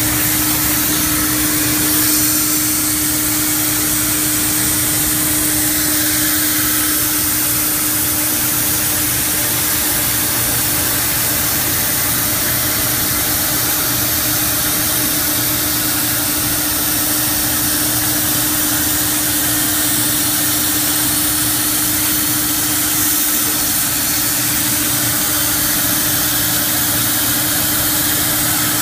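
Industrial machine running steadily: a constant mid-pitched hum over an even hiss, unchanging throughout.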